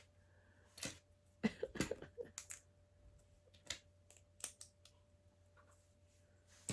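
Small plastic LEGO pieces clicking and tapping as they are handled and fitted, in scattered light clicks with a small cluster early on and a few single ticks later.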